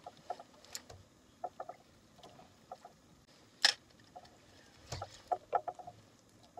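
Quiet sounds aboard a small outrigger boat on calm water: faint scattered ticks and knocks, with one sharper click about halfway through.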